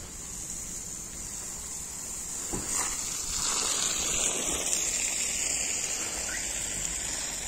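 Water spraying from a garden hose onto plants and pavement, a rushing hiss that swells louder a few seconds in and eases off near the end.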